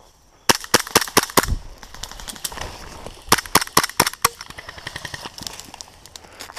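Airsoft pistol firing sharp snapping shots: about five in quick succession, then after a pause of about two seconds a second string of about five.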